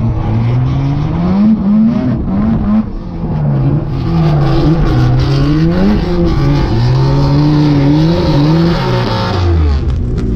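Drift car engine revving up and down from inside the cabin, its pitch rising and falling with the throttle. From about four seconds in until near the end, a dense tyre screech joins it as the car slides sideways with its rear tyres spinning and smoking.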